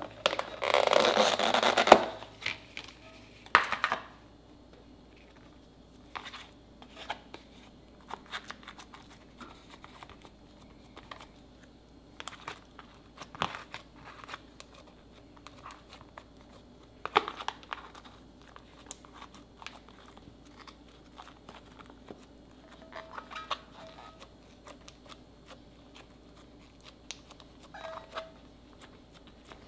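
Snap-on lid of a plastic food container pulled off with a loud crackling rush for about two seconds, with a shorter rattle near four seconds. After that, scattered small clicks and taps of the plastic tub as slime is laid in and pressed down.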